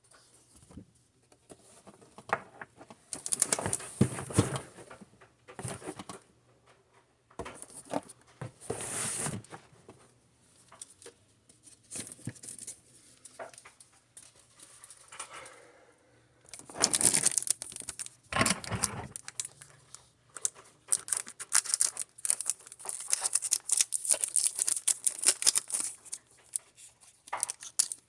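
Plastic and foil packaging of Pokémon trading-card products crinkling and being torn open by hand, in irregular bursts of rustling that grow busier in the second half.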